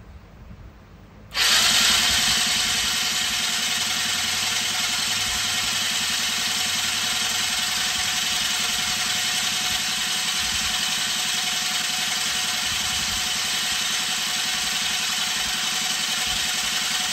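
Polaris Scrambler 50's electric starter cranking the 50cc engine with the spark plug out, a steady hissing whir with a fast, even pulse, held for about sixteen seconds; the cranking is meant to clear leftover oil from the hydrolocked engine. It starts about a second in and cuts off suddenly at the end.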